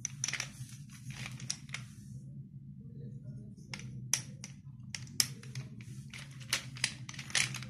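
Dry slate pencils crunching and snapping: a quick run of sharp, brittle crunches, a few single snaps in the middle, and another dense run near the end, over a low steady hum.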